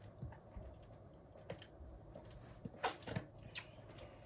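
Faint eating sounds close to the microphone: scattered small mouth clicks and handling taps, with a few louder clicks about three seconds in.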